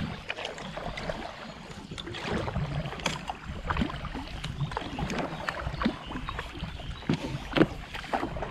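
Double-bladed paddle strokes in an inflatable kayak: the blades dip and splash in the river, with drips and many short sharp clicks over a steady wash of noise.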